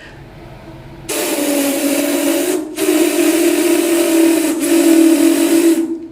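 A man imitating a steam locomotive with his voice: a hissing, whistle-like tone in three long blasts with short breaks between, starting about a second in.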